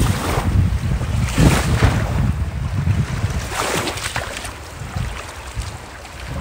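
Wind buffeting the microphone over small Lake Michigan waves washing onto the sand at the water's edge, with a few brief swishes of water. The wind rumble eases off in the second half.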